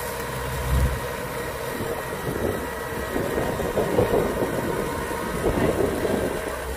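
Kubota DC-105X rice combine harvester's diesel engine running steadily under load as the crawler machine climbs over a high paddy bund.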